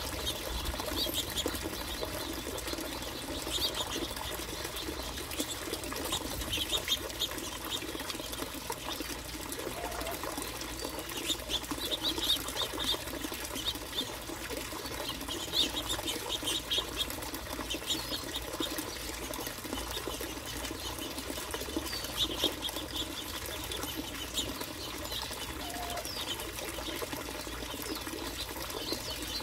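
Finches chirping in short clusters of rapid chips every few seconds, over a steady rustling with light clicks.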